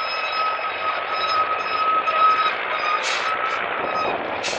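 Off-road trial truck working its way over a rough dirt slope, its running noise under a steady high-pitched whine. Two short hisses come about three seconds in and again at the end.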